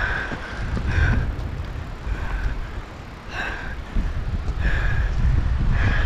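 Mountain bike rolling down a rough, wet trail, heard from a handlebar-mounted camera: a heavy rumble of tyres, rattle and wind. Short high squeals repeat about once a second, likely the disc brakes squealing as they are dabbed in the wet.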